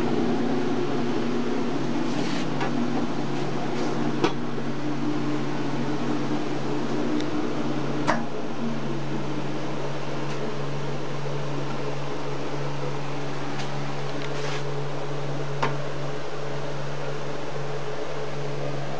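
60-quart Hobart commercial planetary mixer running: a steady electric-motor and gear hum, with a few light clicks.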